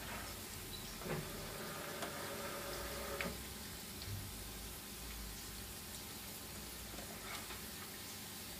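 Pork ribs deep-frying in hot oil, a steady sizzle, with a few light knocks as a wooden spatula stirs and lifts the pieces in the pan.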